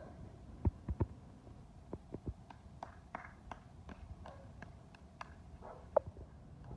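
Footsteps of a person and a dog on grass and dry leaf litter: scattered dull thumps in the first two seconds, then a run of light ticks and taps, and one short sharp sound about six seconds in.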